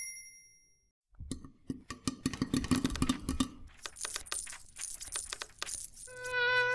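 A typewriter's bell dings at the start and rings out. After about a second's pause comes a clatter of metallic clinks and jingling. Near the end a steady pitched tone is held for about a second and a half.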